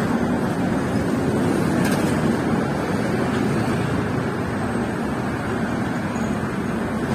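Steady street traffic noise: a dense, even rumble of vehicles with no single one standing out.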